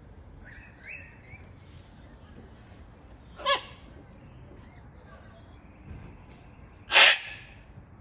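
Sulphur-crested cockatoo calling while agitated: a short squawk about three and a half seconds in, then a louder screech about a second before the end. Fainter, higher bird calls sound near the start.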